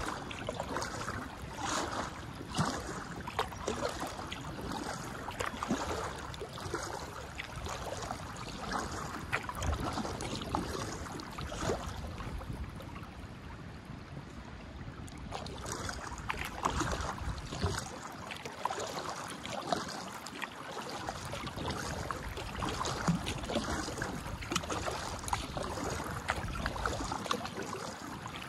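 Kayak paddle blades dipping and pulling through calm canal water, with splashes and drips off the blades, easing off for a few seconds near the middle.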